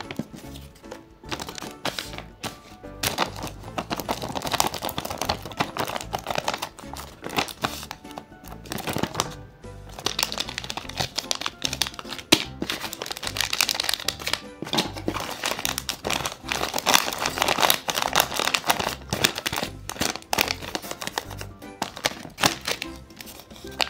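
Background music with paper crinkling, rustling and clicking as a handmade paper blind bag is opened and handled.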